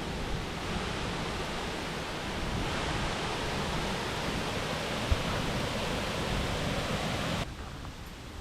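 Steady rush of fast-flowing water, with a single low bump about five seconds in; the rush drops away abruptly near the end.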